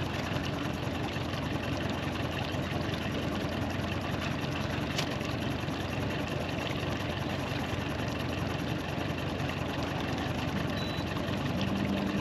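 Boat motor idling steadily at trolling speed, with one short click about five seconds in.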